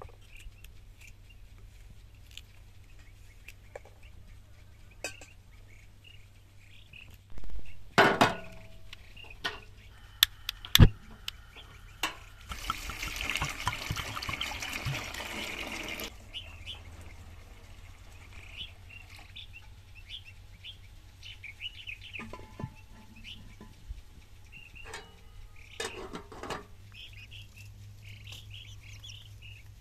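Small birds chirping throughout, with light knife clicks as fresh green beans are cut into an aluminium pot and a couple of knocks around a third of the way in. Near the middle, water is poured into the pot of cut beans for about three and a half seconds. Near the end, young chickens are clucking.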